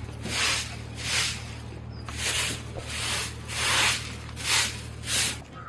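Soft swishing strokes repeating a little faster than once a second, over a steady low hum that stops shortly before the end.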